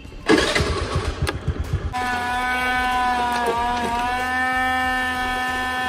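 A scooter engine starting and running briefly, then a hand blender motor whirring steadily as it blends milk for cold coffee in a steel pot. The blender's pitch dips for a moment partway through.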